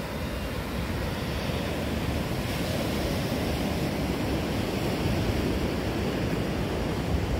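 Ocean surf washing onto a sandy beach, a steady rush of small breaking waves.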